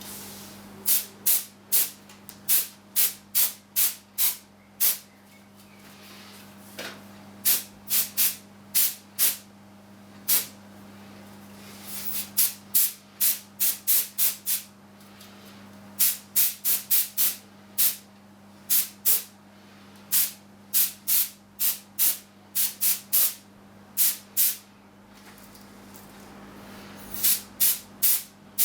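Can of compressed air sprayed in dozens of short bursts, often several in quick succession, to blow dust out of a desktop PC case. A steady low hum runs underneath.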